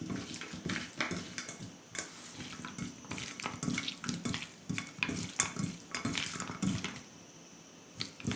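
A hand squeezing and turning wet raw chicken pieces in a stainless steel bowl. The squelching and clicking is irregular, with meat against the metal, and it thins out for a moment near the end.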